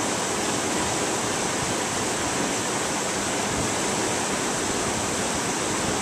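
Steady rush of a brook's rapids running over rocks.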